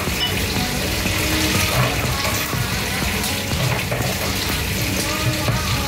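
Chicken pieces sizzling in oil in a wok, a steady hiss, as they cook down and give up their juices.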